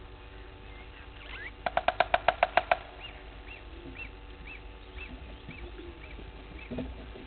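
Wild animal calls: a rapid burst of about ten loud, harsh notes lasting about a second, then a faint high note repeated about twice a second.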